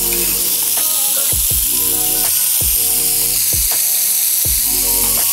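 Ground beef frying in olive oil in a frying pan, a steady high sizzle. Background music plays under it, with a low drum beat about once a second.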